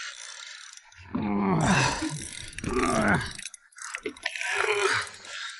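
A man groaning with effort, two long strained groans followed by shorter grunts, while pumping a rod against a large tuna. A faint hiss of wind and sea lies underneath.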